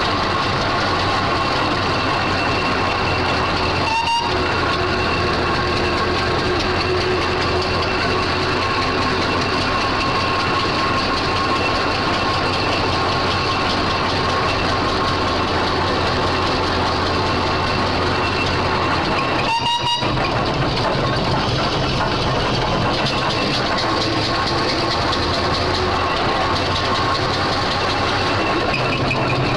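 Steam traction engine driving along, heard from its own footplate: a steady mechanical clatter of the engine and gearing that keeps up without a break. The sound drops out for an instant twice.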